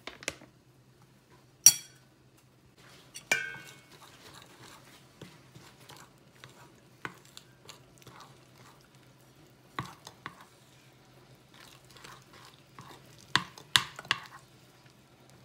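Batter being mixed in a bowl: a utensil clinks against the bowl in scattered sharp strikes, the loudest near two seconds and three seconds in and a few more near the end, with quieter stirring between. A faint steady hum runs underneath.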